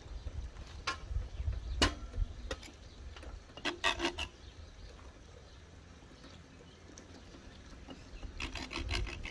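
Knife carving crisp, charred outer chicken off a rotisserie gyro stack: scattered clicks and short scrapes of the blade, with a denser run of them about four seconds in and again near the end.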